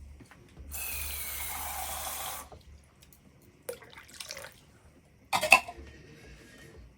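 Water running from a tap into a pot for about two seconds to fill it. Then a few clicks and knocks, the loudest a sharp clack about five and a half seconds in.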